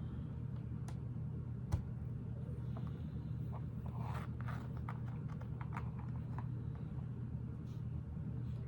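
Small plastic Lego pieces clicking and tapping as they are handled and pressed onto the model, with one sharper snap about two seconds in and a busier run of clicks around the middle, over a steady low hum.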